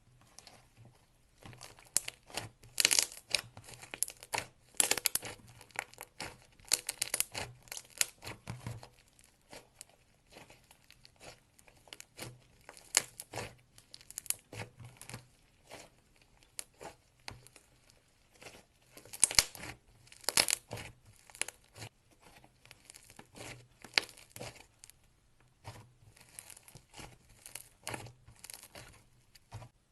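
Clay slime being kneaded and stretched by hand, making irregular bursts of sticky crackling and popping clicks, with brief quieter spells.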